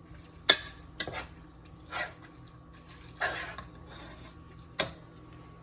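A cooking utensil knocking and scraping in a pan of browning meat: a few sharp clinks and two short scraping strokes.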